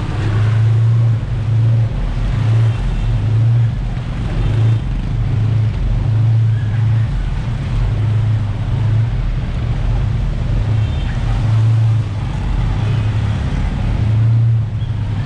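Jet ski engine running over water: a loud, steady low drone that swells and eases every second or so.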